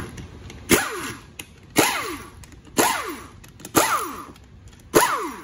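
Air impact wrench spinning out the front pump bolts of a GM 4L60E automatic transmission in short bursts, five of them about a second apart, each ending in a falling whine.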